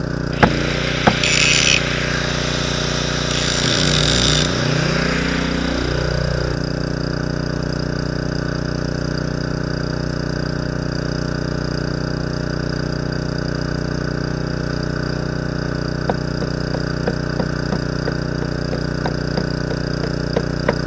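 Bobcat mini excavator's diesel engine running steadily, its pitch sliding down and back up about four to six seconds in. Two short bursts of arc-welding crackle sound over it in the first five seconds, and a few light clicks come near the end.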